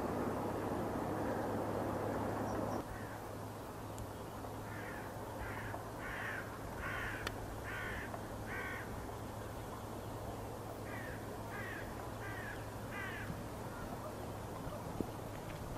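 Steady distant jet aircraft noise that cuts off abruptly about three seconds in. Then a crow caws in two runs of harsh calls, about six and then four.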